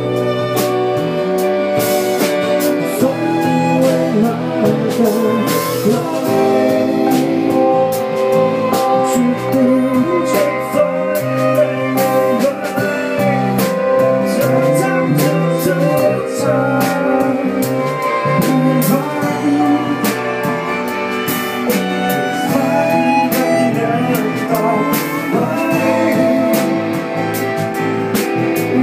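A rock band with a string section playing a song: violins and cello bowing sustained lines over electric and acoustic guitar, bass and drum kit, with a man singing. The drums and cymbals keep a steady beat.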